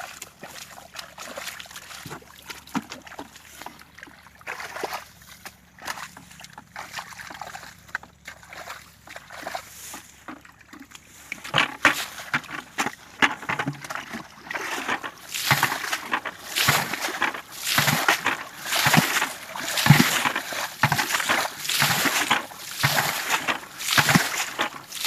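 Water splashing and sloshing in irregular bursts, faint at first, then louder and more frequent from about halfway through.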